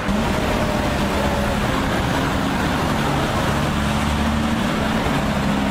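Heavy armored police vehicles driving past, their engines giving a steady low hum over road noise.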